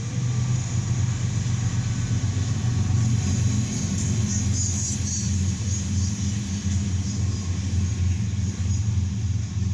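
Norfolk Southern freight train passing: a diesel locomotive, then autorack cars rolling by, giving a steady low rumble heard through the car's windshield.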